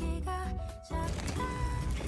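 Background music with a simple melody of held notes. Just before a second in it dips briefly, then comes back with a noisier layer under the notes.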